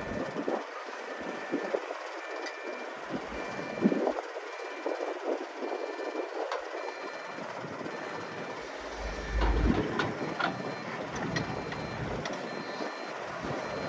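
Backup alarm beeping in even, steady pulses on heavy machinery, with a higher-pitched beep in the second half. Engine rumble and scattered clanks run underneath, with a louder rumble about two thirds of the way in, from an excavator loading dirt into a dump truck.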